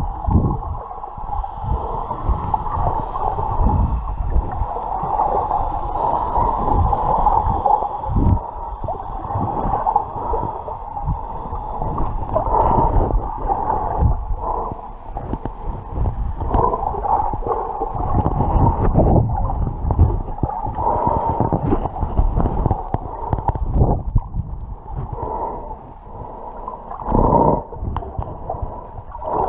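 Water heard from a submerged camera while snorkelling: a steady, muffled rushing and gurgling with irregular low thuds, and a louder surge near the end.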